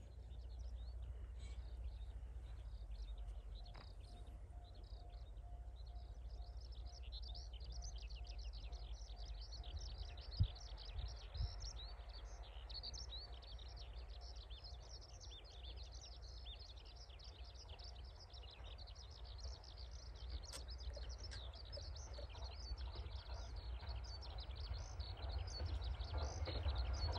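Small birds chirping and trilling almost continuously over a low steady rumble of wind, with a faint evenly repeating tone in the background for a while. Near the end the noise of an approaching electric train rises.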